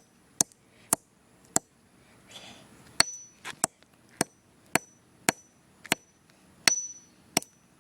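Hammer smashing an iPod charger: about a dozen sharp blows, roughly one every half second, several followed by a brief high ring.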